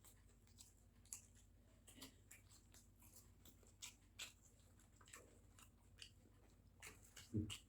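Faint chewing and biting into hot, crisp deep-fried kakera dumplings, with scattered small crunches and clicks, and a brief low sound near the end.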